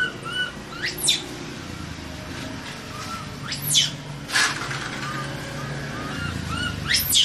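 Baby macaque crying: short, soft chirping cries and about four shrill squeals that shoot up in pitch and drop straight back down.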